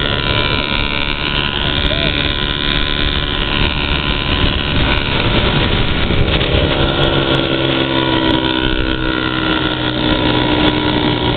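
Engines of a Honda Foreman 500 ATV and a small chopper motorcycle running at road speed side by side, with wind rushing over the microphone. Their pitch climbs a little about two-thirds of the way through.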